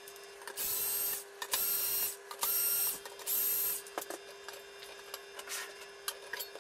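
Small cordless screwdriver running in four short whining bursts of about half a second each, backing out the four screws of the pan-tilt mount's bottom plate. Light clicks of handling follow near the end.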